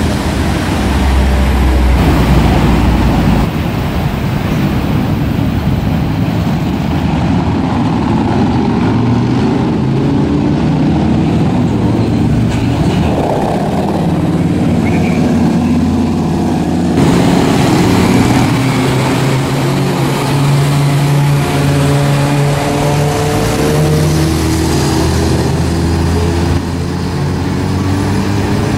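Sport motorcycle engines running and revving on a city street, mixed with passing car traffic, the engine notes rising and falling in pitch in the second half. The sound changes abruptly twice, at edits in the footage.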